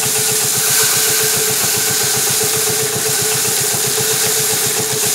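Power-driven rice drum thresher running steadily, with a rapid, even pulsing and a steady hum. A dense hiss runs over it as bundles of paddy are held against the spinning drum and the grain is stripped off.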